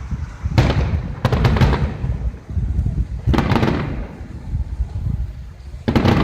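Fireworks shells bursting in the sky: a bang about half a second in, a quick cluster of cracks a moment later, another bang past the middle and one more near the end, each with an echoing tail. A steady low rumble runs underneath.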